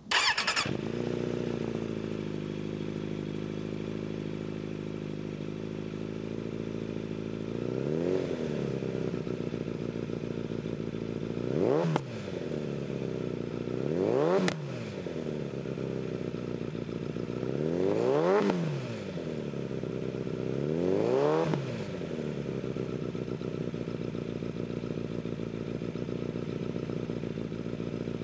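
Suzuki motorcycle engine starting up through its short canister exhaust, idling steadily, then blipped about five times from partway in, each rev rising and falling back to idle.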